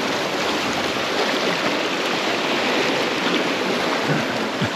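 Sea water washing against shoreline rocks, a steady rush with no breaks.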